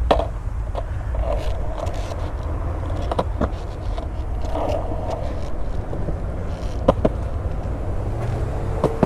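Wind rumbling steadily on the microphone, broken by several sharp clacks of skateboards on concrete, two of them in quick pairs.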